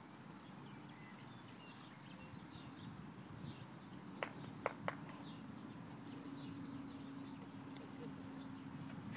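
Muffled hoofbeats of a ridden horse moving over soft dirt footing, with three short sharp clicks in quick succession a little past halfway, the loudest sounds, and a faint steady hum in the second half.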